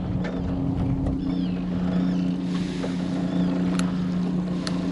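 Boat motor running steadily with an even, low two-note hum. Two light clicks come near the end.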